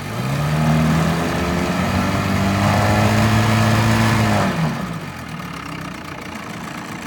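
1974 Mercury 110 9.8 hp two-stroke twin outboard motor opened up at the start, rising quickly in pitch and running fast and steady. About four and a half seconds in it is throttled back and drops to a lower, quieter speed.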